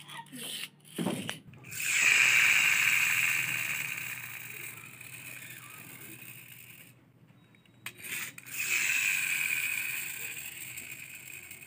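Plastic toy tractor's geared wheels spun by hand, with a few clicks, then a whir twice, about six seconds apart, each loud at first and dying away over several seconds as the wheels run down.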